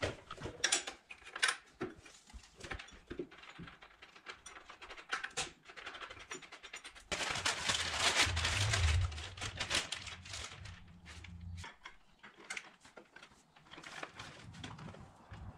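Small metallic clicks of parts being handled, then brown paper wrapping crinkling loudly for about five seconds as a new motorcycle drive chain is unwrapped, then the chain's links clinking as it is fed onto the rear sprocket.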